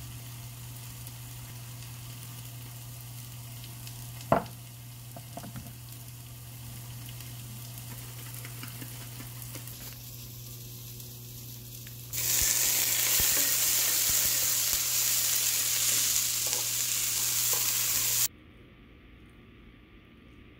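Food sizzling in a hot pan in a kitchen: a low steady hum with one sharp knock about four seconds in, then a loud even sizzle starting about twelve seconds in that cuts off abruptly some six seconds later.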